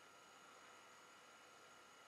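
Near silence: a steady faint hiss with a few faint, steady high tones.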